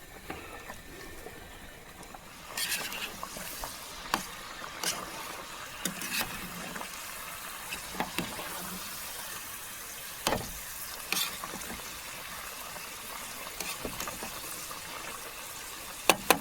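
Camp food preparation: scattered, irregular knocks of a knife on a chopping board as potatoes are cut into chips, with a brief hiss about three seconds in and a quick run of chopping knocks at the very end.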